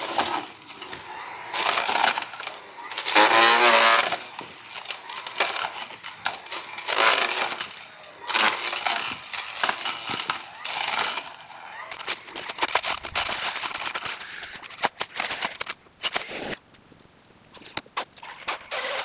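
Brush and branches being cut and broken, in irregular bursts of crunching and snapping.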